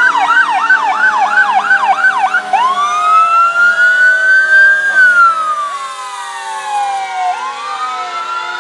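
Fire truck siren going past: a fast yelp of about four quick rising sweeps a second, which after about two and a half seconds switches to a slow wail. The wail climbs, falls away over a couple of seconds, and starts climbing again near the end.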